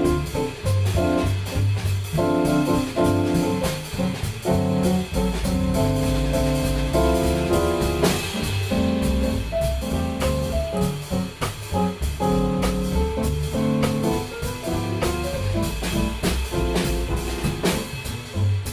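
Instrumental jazz trio playing live: chords and melody on a digital stage piano over a walking double bass line and a drum kit keeping time.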